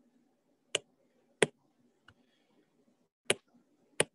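Sharp clicks of a stylus tapping on a tablet's glass screen: four distinct taps at uneven intervals, with a fainter one between them.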